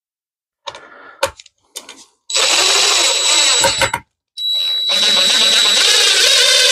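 Power drill driving wood screws into a 2x4 frame in two runs, with a steady high whine over the motor: a run of under two seconds, a short pause, then a longer run. A few clicks and knocks from handling the tool come just before.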